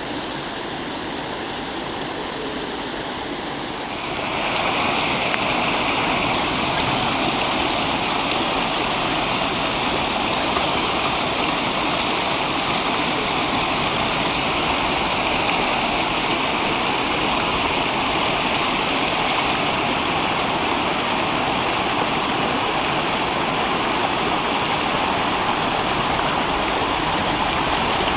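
Shallow stream water flowing and splashing over rocks in a steady rush. It gets louder about four seconds in.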